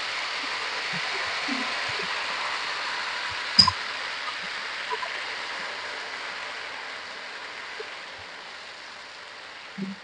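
Hot caramelised sugar and ghee sizzling as milk-soaked semolina is poured into the pan. The hiss fades gradually, and a sharp clink of bowl on pan comes about three and a half seconds in.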